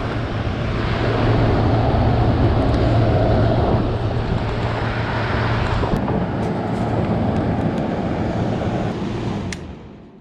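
Window air conditioner running on its second stage: a steady rush of air over a low motor hum, which drops away after a click near the end.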